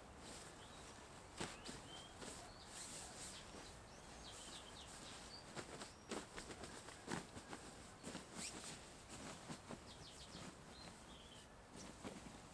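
Faint rustling and crinkling of a Rab Ascent 1100 down sleeping bag's fabric shell as it is unrolled and plumped up by hand, with a few short bird chirps.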